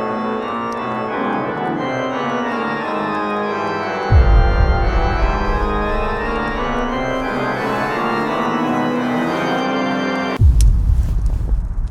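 Organ-like keyboard music with many held chords; a deep low hit comes in about four seconds in and sustains, and near the end the music cuts off suddenly on another low thud that fades away.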